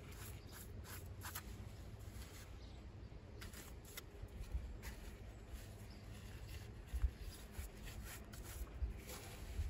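Faint, irregular scrapes and taps of a pointing trowel working lime mortar into the joints of a stone wall.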